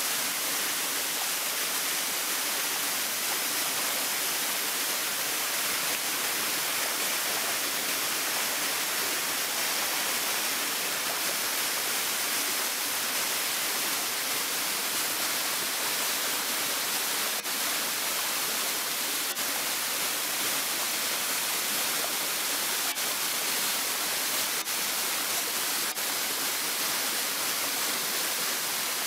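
Small rock waterfall's water pouring down in a steady, even rush.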